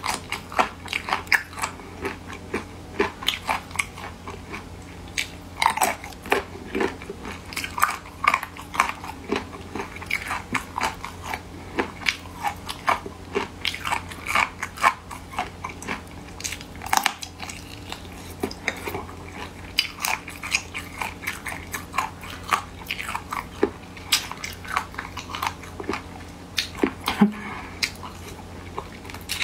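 Chewing and biting on braised chicken feet, with irregular crisp crunches and clicks several times a second as the skin and cartilage are bitten and chewed.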